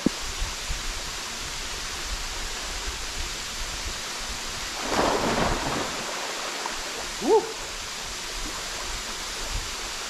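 Steady rushing of a waterfall into a jungle pool. About halfway through there is a brief splash as a swimmer moves into the water, and soon after a short pitched cry that rises and falls, the loudest sound here.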